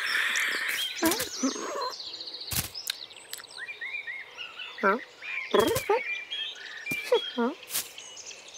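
Cartoon cat noises voiced by a person: several short mews and chirrups, each bending up and down in pitch, over light bird chirping, with a few small clicks.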